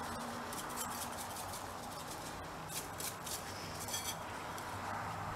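Light scattered rattling and ticking of seasoning shaken from a shaker can onto fish fillets in a plastic bowl, over a steady hiss from a propane burner.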